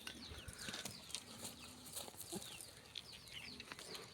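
Birds chirping faintly: many short, high chirps that fall in pitch, repeating throughout, with a few faint knocks.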